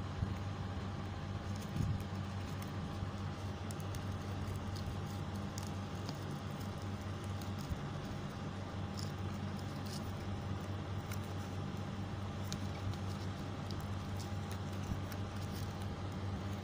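A steady low hum with a faint steady tone above it, under scattered faint crinkles and ticks of folded paper and craft wire being handled.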